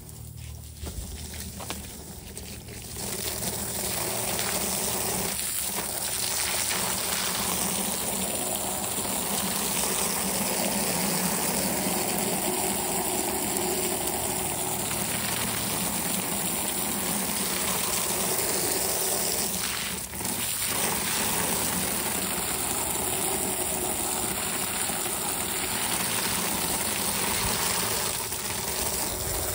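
Hose spray jetting water onto a dirt-caked pool filter element and the concrete under it: a steady hiss and splash that starts about three seconds in and breaks off briefly near the twenty-second mark.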